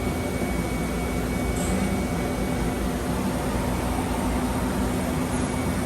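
Mazak Multiplex 6200Y CNC turning center running under power: a steady machine hum with a faint, thin, steady whine above it.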